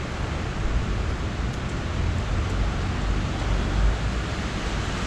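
Heavy rain pouring down steadily, an even hiss, with a low rumble that swells through the middle.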